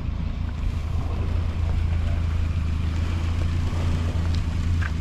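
Engine idling steadily with a deep, even low rumble.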